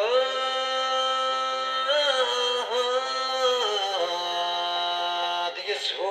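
A man singing one long, drawn-out melismatic phrase. The pitch bends a few times, steps down lower about four seconds in, and breaks off near the end before the next phrase begins.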